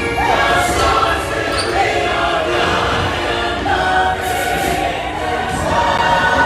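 Music with a choir of voices singing a melody over full instrumental backing.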